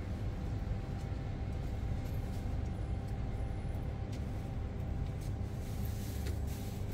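Steady low mechanical hum with a rumble and a faint steady whine over it, the kind of sound an idling engine or running machine makes.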